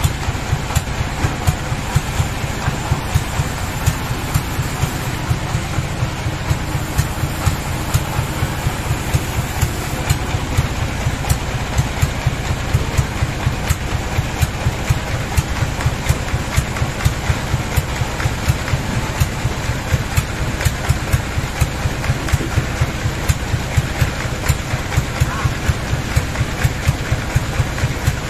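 Sawmill's engine-driven band saw machinery running without cutting: a steady low drone with a regular knock about two to three times a second.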